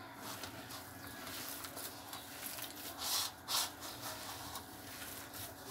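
Hands kneading and squeezing a mashed potato and vegetable mixture in a bowl: soft squishing and rubbing, with two brief louder rubbing sounds about three seconds in.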